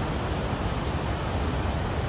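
Steady rushing noise of a large waterfall, deep and constant.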